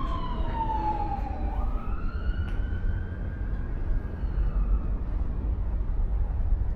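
Emergency-vehicle siren wailing: one long falling sweep, then a slower rise and fall that fades away about five seconds in, over a low steady rumble.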